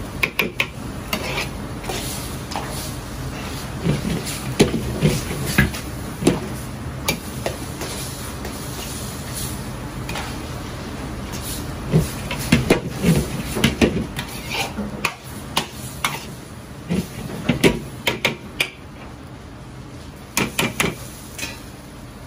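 A metal ladle clanks and scrapes against a large wok in irregular bursts as spaghetti is stir-fried over a gas burner, with a steady burner rush and sizzle underneath.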